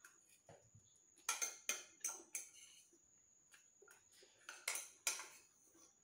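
Metal fork clinking and scraping against a bowl as noodles are eaten: a scattered series of short, sharp clicks, faint overall.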